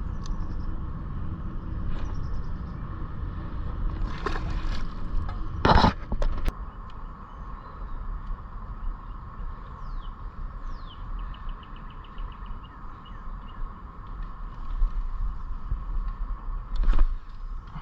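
Steady low outdoor rumble with a faint constant hum, broken by a sharp knock about six seconds in, with a bird's high chirps and a short rapid trill in the middle.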